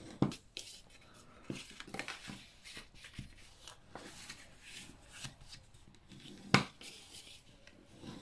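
Scored cardstock being folded concertina-style and creased with a bone folder: paper rustling and short scrapes of the folder along the folds, with a few sharp knocks, the loudest about six and a half seconds in.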